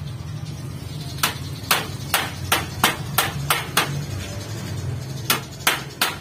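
Hammer blows on a metal frame, each a sharp ringing knock. About eight come in quick succession starting a second in, then after a short pause three more near the end.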